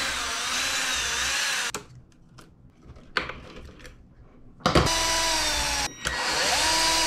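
Cordless drill-driver with a hex bit turning screws on an RC car chassis, running in three spells. The first lasts about a second and a half; after a pause of about three seconds with a few small clicks, it runs twice more, and the last spell rises in pitch as it speeds up.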